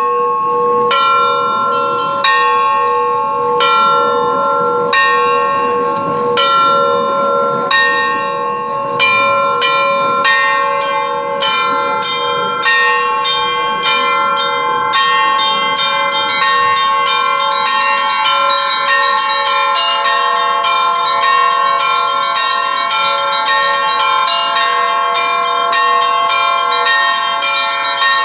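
Russian bells rung in a festive peal: several small and medium bells ring on over one another. At first the strokes come about once a second. From about ten seconds in they quicken into a dense, rhythmic pattern, and another bell joins later.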